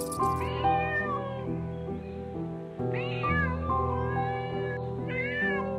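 Tabby kitten mewing three times, each short high mew rising and then falling in pitch, over background music with sustained notes.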